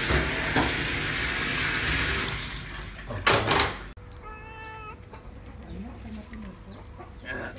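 A steady loud hiss from the pot of water heating on the stove, cutting off suddenly about four seconds in. After it comes quieter yard ambience with a steady high insect drone and a short animal call.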